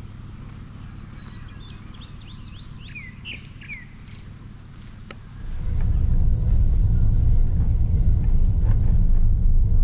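Birds chirping in short sweeping calls over a low steady hum. About five and a half seconds in, this gives way to the much louder, steady low rumble of a car driving, heard from inside the car.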